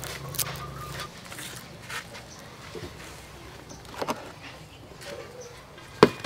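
Quiet food-prep handling sounds: a few soft clicks and rustles, then one sharp knock about six seconds in as a bamboo basket is set down on the wooden table.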